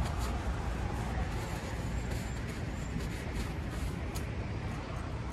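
Steady low rumble of outdoor traffic and wind, with a few faint clicks and rustles from a paper napkin and takeout containers being handled.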